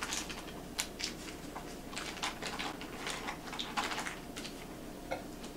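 Paper wrapper being peeled off a stick of butter: irregular crinkling and crackling ticks.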